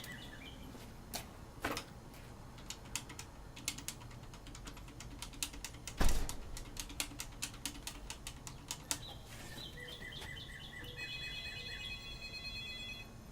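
Rapid, irregular clicking like typing on keys, with one loud knock about six seconds in; from about nine seconds a steady electronic ringing tone, typical of a phone ringing just before a call is answered.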